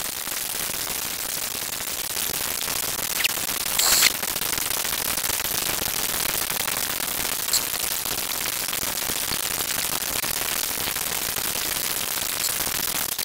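Steady hiss like static, with a few brief crackles, the loudest about four seconds in.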